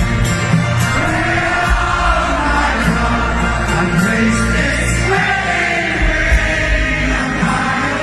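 Live pop-rock music from a stadium PA with heavy bass and singing, a large crowd singing along.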